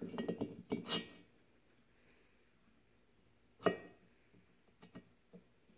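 Metal clinks and knocks from a cylinder barrel being worked down over the piston and rings onto the studs of a 1974 Yamaha RD200 two-stroke engine. A cluster of clatter comes in the first second, then one sharp knock about three and a half seconds in, then a few light ticks near the end.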